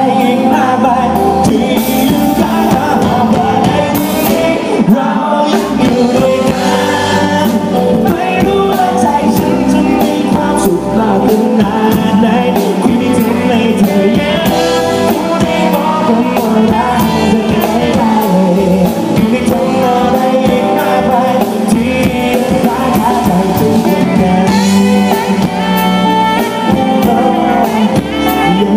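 Live band performance: a male singer singing into a handheld microphone, backed by electric bass and a drum kit.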